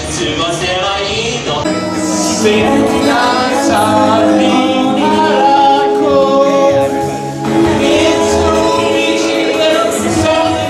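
A man singing a melody into a microphone, with long held notes; the singing breaks off briefly and starts again about seven and a half seconds in.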